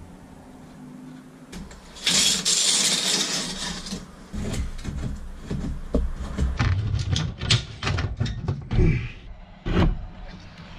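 Wooden floor-framing boards being worked into place. A loud scrape of wood about two seconds in, then from about halfway a quick, irregular run of sharp knocks and taps as the frame pieces are fitted and fastened.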